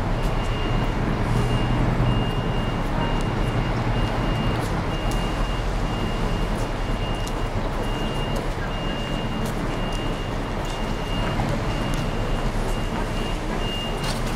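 Steady engine and road noise inside a moving tour coach, with a high electronic beep repeating about once or twice a second.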